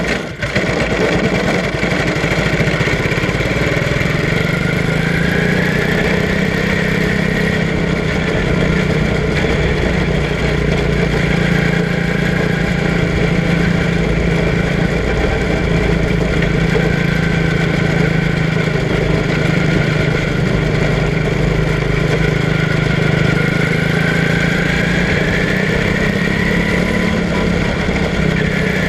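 Quarter midget race car's small engine running steadily on track, heard from on board the car, its pitch rising and falling gently as it laps.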